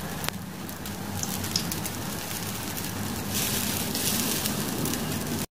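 Wheat paratha sizzling on a hot nonstick tawa, a steady crackling hiss with a sharp click near the start. The sizzle grows louder about three seconds in as oil is spooned over the bread, then cuts off suddenly at the end.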